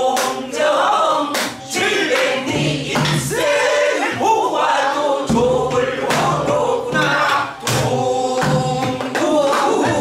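A mixed group of men and a woman singing a Korean Namdo folk song in unison, with strokes on buk barrel drums keeping the rhythm.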